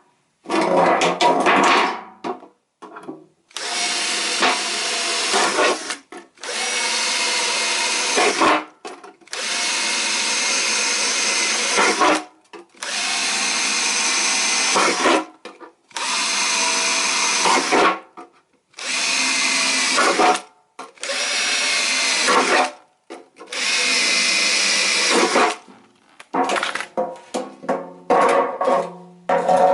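Electric drill run in repeated bursts of about two to three seconds with short pauses between, drilling into a tin can. Near the end it switches to quick, short blips of the trigger.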